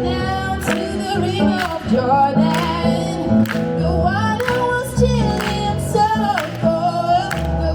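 Women's gospel choir singing over instrumental accompaniment with a steady beat.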